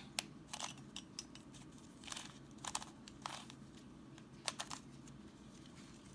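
Plastic layers of a Fisher cube, a shape-shifting 3x3 twisty puzzle, clicking and scraping as they are turned in quick moves, in short irregular bursts.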